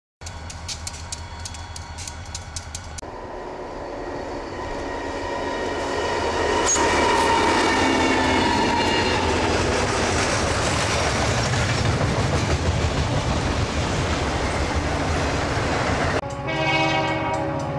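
Freight train passing close by: the diesel locomotive sounds its horn as it goes past, then the freight cars rumble and clatter along the rails. A diesel locomotive idles briefly at the start, and another train horn comes in near the end.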